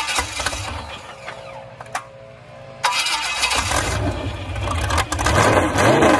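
A small-block Chevy 350 V8 with open headers being cranked over by its starter, catching and firing about three seconds in, then running and revved up and down with a few throttle blips toward the end.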